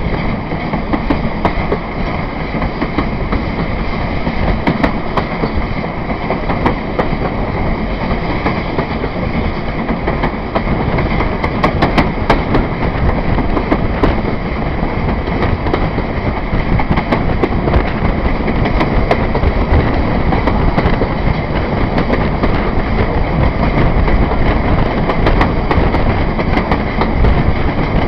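Steam-hauled train running along the line, heard from the carriage just behind the locomotive: a steady loud rumble with wheels clicking over the rail joints.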